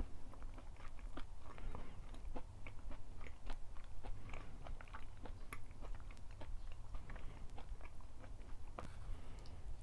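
A person chewing and biting food close to the microphone: many small, irregular wet clicks and crunches.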